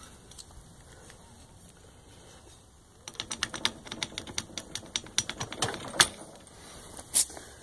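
Plastic axle cap on a lawn tractor's steel rear wheel being worked loose by hand: starting about three seconds in, a quick run of small plastic clicks and scrapes, with the sharpest snap about six seconds in.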